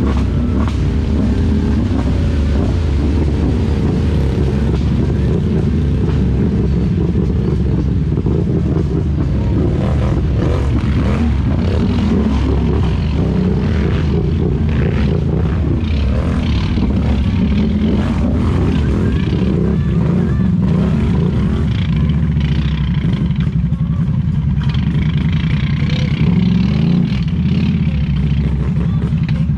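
ATV engines running at low speed on a muddy trail, the nearest engine's note rising and falling a little with the throttle.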